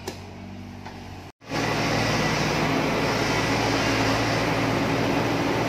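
Excavator's diesel engine running steadily: a faint hum at first, then, after a brief break about a second and a half in, much louder and closer, with a steady low hum under a broad noise.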